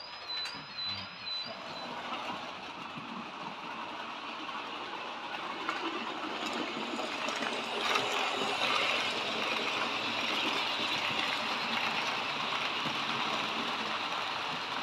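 Model trains running on a layout: a steady whirr of small electric motors and wheels on track that swells about eight seconds in as a train comes close. A repeated high chirp sounds in the first two seconds.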